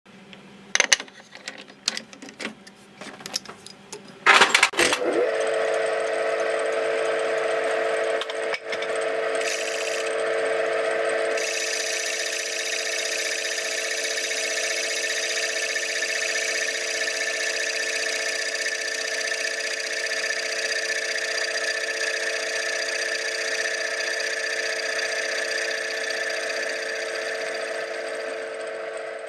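Metal-turning lathe: a few knocks and clicks, then it starts about four seconds in and runs steadily with a hum and whine. From about eleven seconds a cutter works a disc spinning in the chuck, adding a hissing cutting noise, and the sound fades near the end.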